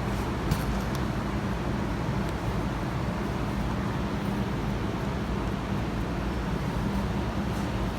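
A steady low background rumble with a faint hum, and a single faint tap about half a second in.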